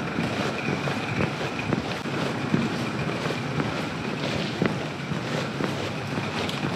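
Footsteps crunching on railway track ballast under a steady rushing noise like wind on the microphone.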